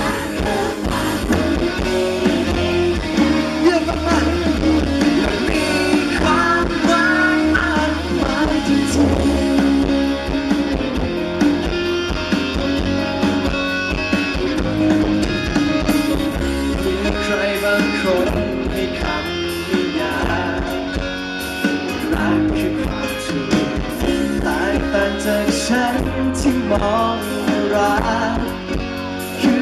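Live rock band playing a song: electric guitar, bass and drums with a male singer's voice over parts of it, amplified through a stage sound system.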